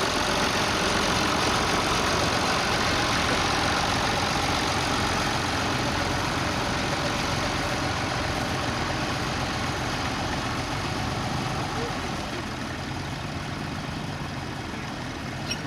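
Tractor engine running steadily under load, growing a little quieter over the last few seconds.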